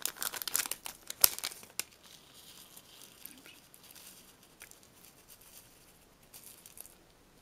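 Small plastic bag of rhinestones crinkling as it is handled and emptied out onto paper, with a sharp click about a second in. After about two seconds it goes much quieter, with only a few faint ticks.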